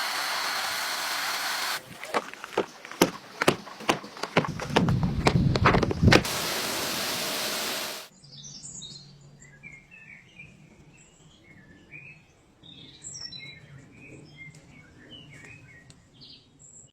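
Pressure washer spraying with a steady hiss, broken for a few seconds by a run of sharp clicks and knocks; the spray cuts off suddenly about eight seconds in, leaving birds chirping.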